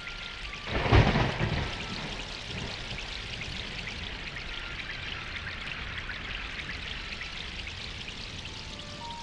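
Heavy wind-driven storm rain, a steady rushing hiss, with a louder gust about a second in.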